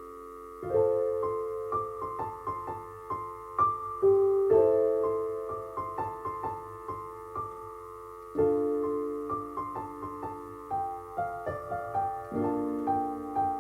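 Piano instrumental passage. Chords are struck and held, with a melody of quick single notes played over them, and fresh chords come in about a second in, past halfway and near the end.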